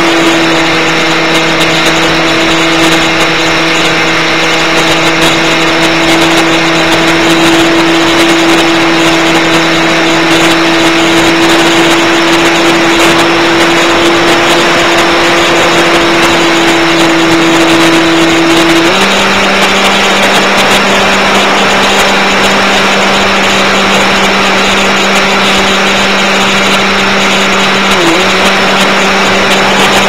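Multiplex Easystar RC plane's electric motor and propeller running steadily, heard from on board over a steady rush of noise; the motor's pitch steps up about two-thirds of the way through and dips for a moment near the end.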